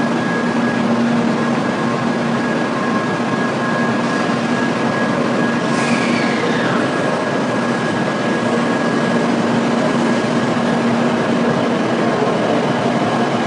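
N700-series Shinkansen train moving along the station platform: a steady, loud rush of wheel and air noise with a steady electric hum. A brief falling whistle comes about six seconds in.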